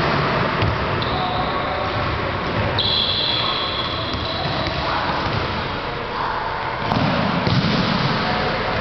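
Footballs being kicked and bouncing on a sports-hall floor, with thuds echoing in the large hall over children's voices. A steady high tone sounds for about two seconds near the middle.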